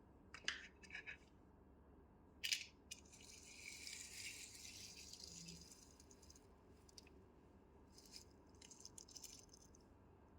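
Faint, sparse clicks and light rattling, with a soft hiss lasting a few seconds in the middle.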